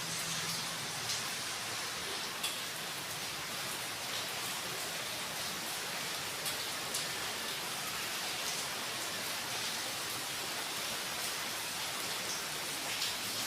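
Rain falling steadily, a dense even hiss with a few sharper drop ticks now and then.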